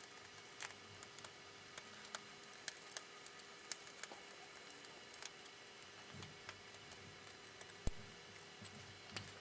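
Faint, scattered small clicks and taps of a screwdriver and small hand tools working at the screws of a circuit board, over a low steady hum.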